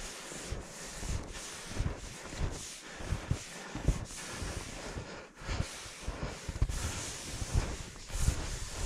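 Wind buffeting the microphone, with irregular rustling and rubbing noise.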